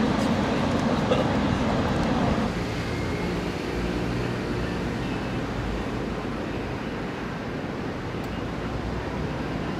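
Outdoor city ambience: a murmur of people and traffic for the first couple of seconds, then after a cut a quieter, steady rumble of distant traffic.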